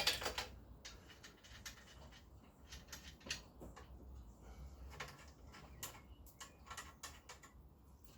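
A sharp knock at the start, then scattered light clicks and rattles as small motorcycle parts and tools are handled during a rebuild.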